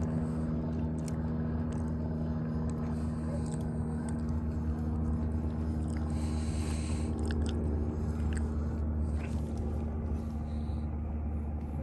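Small boat motor running steadily at one pitch, a low hum, pushing the canoe along at trolling speed. A few faint ticks sound over it.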